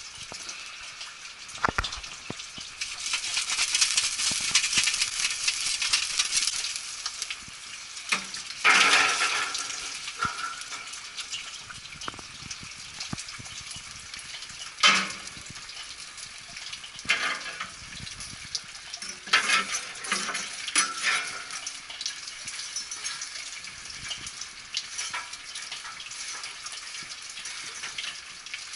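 Burning charcoal briquettes crackling and hissing. Loud clatters and metal knocks come as the hot coals are tipped from a chimney starter into the grill and pushed around with tongs.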